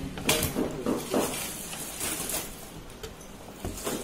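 Hollow plastic calf-feeding bottles knocking and rubbing against one another in a cardboard box as one is lifted and handled, giving a few separate knocks.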